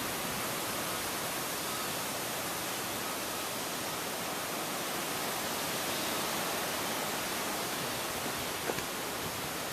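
Strong storm wind rushing steadily through trees, an even, unbroken roar of noise.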